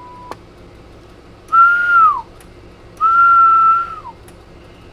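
A person whistling two held notes, each dropping in pitch at the end, as a sideband transmit test on a Cobra 148 NW ST CB radio. Just at the start a short steady tone cuts off with a click.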